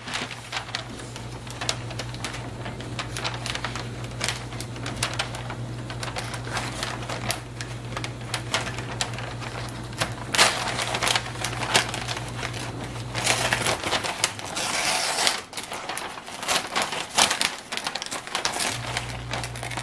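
Roll of wrapping paper crinkling and crackling with many small ticks as it is slit with a small retractable-blade package opener and pulled apart by hand, with louder bursts of rustling past the halfway point.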